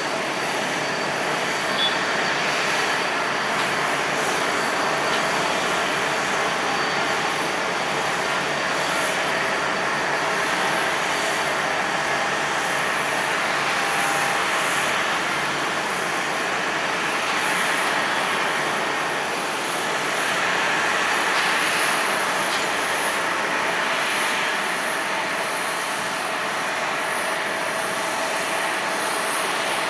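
Jet airliner engines making a steady rushing noise with a faint high whine. The sound swells slightly a little past the middle.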